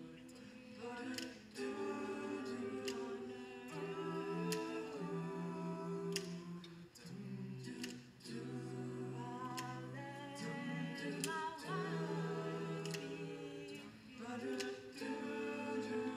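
An a cappella vocal group singing unaccompanied chords in close harmony, several voices held together and changing together every second or two.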